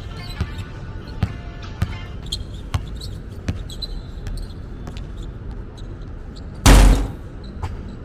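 A basketball bouncing on a court floor, sharp thuds at uneven intervals about once a second, with one much louder thump about seven seconds in. Music plays in the background.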